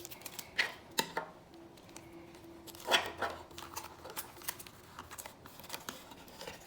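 Scattered light clicks and short scrapes of small objects being handled, the loudest about three seconds in.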